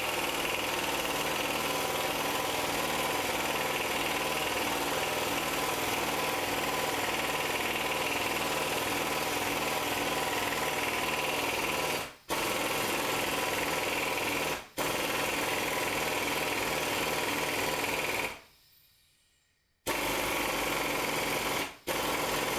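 Impact wrench hammering steadily, driving a puller that draws the pressed-on harmonic balancer off the crankshaft of a 6.0 LQ4 V8. It breaks off for an instant twice, stops for about a second and a half near the end, then runs again in short bursts.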